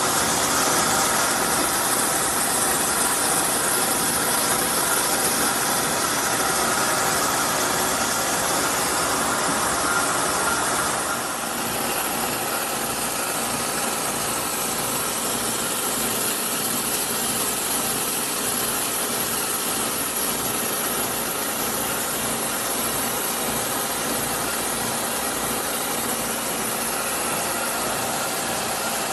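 Horizontal milling machine running, its arbor-mounted disc cutter cutting a slot in a round metal workpiece: a steady hiss of cutting over the machine's drive. The sound changes slightly and drops a little about eleven seconds in.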